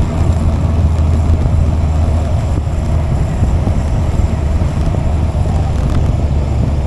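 Motorcycle engine running at a steady cruise, a constant low hum, with wind rushing over the microphone.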